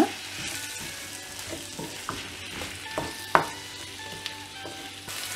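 Onions and tomatoes sizzling in coconut oil in a kadai, stirred with a wooden spatula that scrapes and knocks against the pan. A sharper knock comes about three seconds in.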